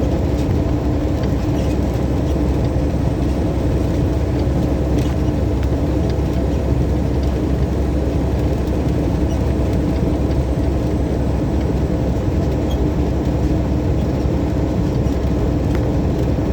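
Semi truck cruising at a steady speed, heard from inside the cab: an even engine drone and road noise with a steady low hum.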